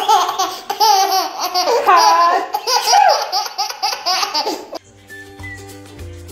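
A baby laughing hard in repeated bursts of giggles. A little under five seconds in the laughter cuts off and quieter background music starts.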